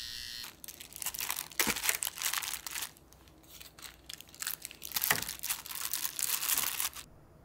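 Paper sandwich wrappers and plastic take-out trays crinkling and rustling in irregular bursts as wrapped sandwich halves are handled and set in place. A steady electric pet-clipper buzz cuts off about half a second in.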